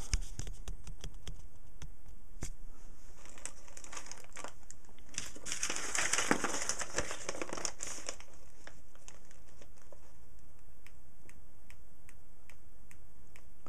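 Handling noise from a box of switches and small parts: plastic bags crinkling, loudest for a couple of seconds in the middle, with scattered small clicks of parts being handled.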